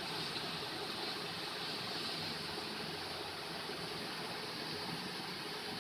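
Steady background hiss, even throughout, with no distinct knocks or clicks standing out.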